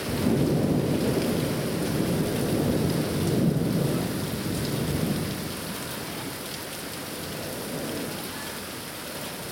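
Thunder rumbling: a sudden low roll that starts right away and lasts about five seconds before fading out, over the steady hiss of rain falling.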